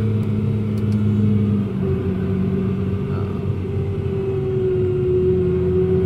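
Tractor engine running, heard from inside the cab, a steady low drone. Its note shifts about two seconds in and then sinks slowly.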